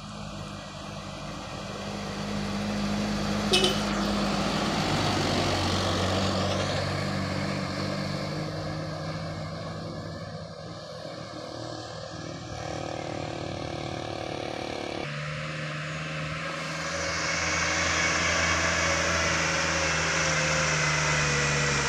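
Heavy trucks loaded with sugarcane running past on a downhill stretch, their diesel engines holding a steady note that shifts in pitch a few times, with a brief sharp click a few seconds in. From about 17 seconds a second truck comes up louder, with a rising rush of tyre and engine noise.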